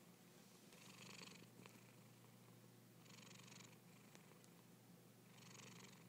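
Long-haired colourpoint cat snoring faintly in its sleep: three soft, breathy snores about two and a half seconds apart, over a steady low hum.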